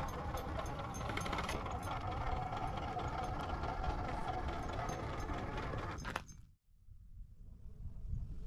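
Radio-controlled rock crawler's electric motor and drivetrain whining steadily under load as it crawls over rough ground, with scattered rattling clicks. About six seconds in the sound cuts off abruptly, leaving only a faint low rumble that slowly builds again.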